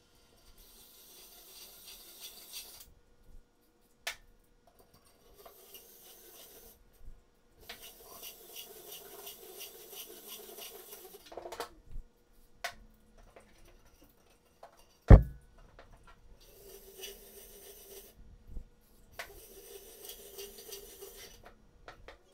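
Spring-loaded hone stones rasping against the bores of a Honda CBX cylinder block in about five stretches of a couple of seconds each, breaking the glaze and leaving a cross-hatch finish. One sharp, loud knock about fifteen seconds in.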